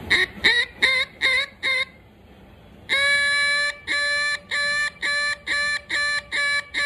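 Duck call with a Bois d'Arc (Osage orange) insert being blown to test its tuning: a quick run of five short quacks, a pause of about a second, then a longer first note that leads into a steady series of quacks at about two a second.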